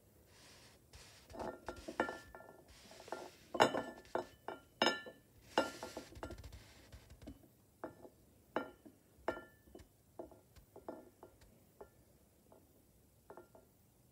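Glazed ceramic bowl clinking and scraping against a ceramic plate's rim as a hand nudges it, each knock ringing briefly at the same bright pitch. The clinks come thick and fast with a few short scrapes in the first half, then thin out to single clinks.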